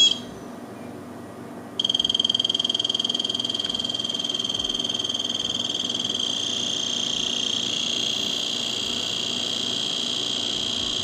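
Klein Tools CL1000 clamp meter's non-contact voltage tester: a short beep as its button is pressed, then about two seconds in a fast-pulsing high beeping alarm starts and keeps on. The beeping is the tester's signal that it senses live AC voltage in the extension cord at its jaw.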